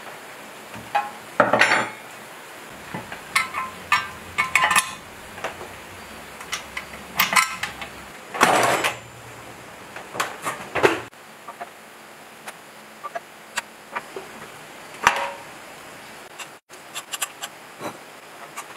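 Metal clinks and clanks of hand tools and parts being worked on a diesel engine during reassembly, scattered irregularly, with a few longer, noisier metallic sounds.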